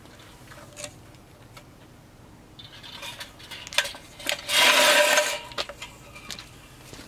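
Steel floor jack being lowered and pulled out from under the car: scattered metal clinks, then a loud rattling scrape lasting about a second, a little past halfway, as the jack rolls across the pavement.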